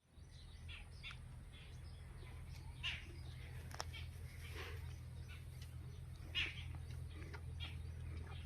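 Short animal chirps or calls, one every second or two, the loudest about three seconds in and again near six seconds, over a steady low hum.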